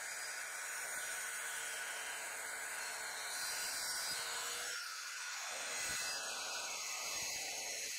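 Bosch GKS 190 circular saw with a multi-material blade cutting through a plastic panel, a steady hissing rush.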